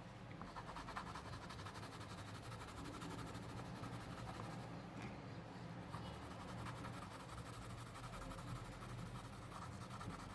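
Graphite pencil shading on drawing paper: a faint, continuous scratching of quick short strokes, over a low steady hum.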